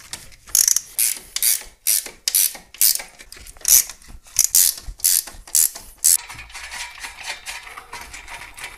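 Hand ratchet wrench clicking in short, repeated strokes, about two a second, as a nut is turned at the turbocharger. The strokes become softer and less regular for the last few seconds.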